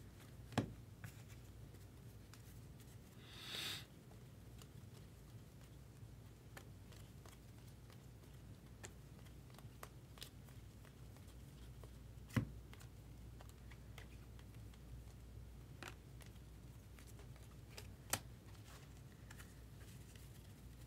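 Quiet handling of trading cards and packs on a table: a few sharp clicks as cards are set down, and one short swish of cards sliding about three and a half seconds in, over a low steady room hum.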